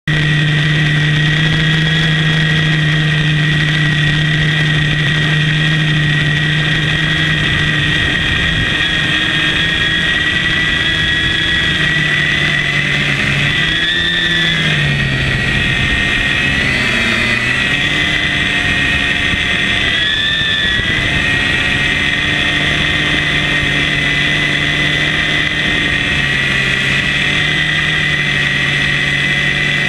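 Hexacopter's electric motors and propellers whining steadily, heard close up from the airframe. About halfway through, the pitch dips and swings up and down for several seconds as the motor speeds change, then settles steady again.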